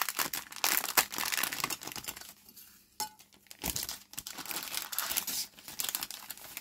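Plastic model-kit parts bag crinkling as it is torn open and handled. Dense crackling for about the first two seconds, then sparser rustles and clicks.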